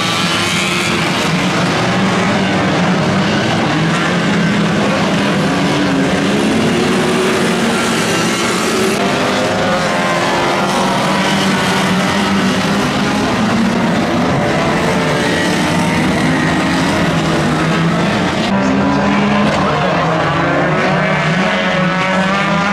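Several banger racing cars' engines running hard together, their pitch rising and falling as they rev through the pack.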